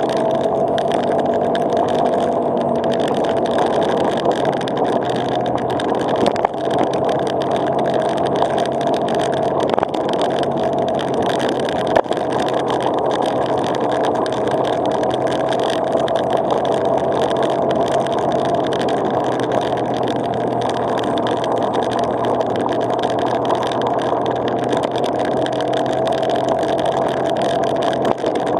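Vehicle driving slowly on a gravel road at about 40 km/h: steady engine and tyre noise with a constant whine.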